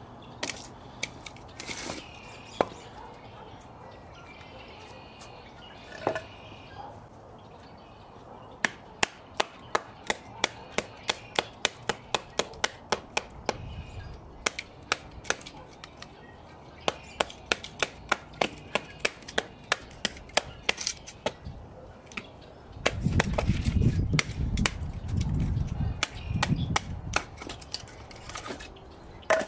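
Rapid runs of sharp wooden knocks, about three a second, from a knife chopping or being batoned into wood, with a few seconds of low noise near the end.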